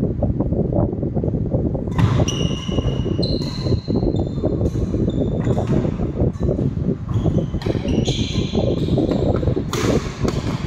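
Badminton doubles rally on a wooden court: shoes squeak again and again on the floor, with sharp racket strikes on the shuttlecock. The squeaks and strikes start about two seconds in, over a steady low rumble.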